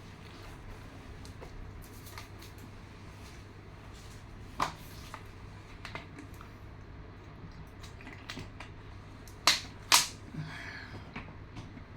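A few sharp clicks and knocks from handling a water container while drinking: one about halfway through and two loud ones close together near the end, over a steady low hum.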